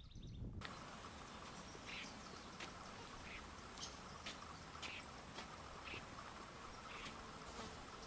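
Insects trilling, a steady high even buzz that starts about half a second in, with short sharp high chips repeating every half second or so over it.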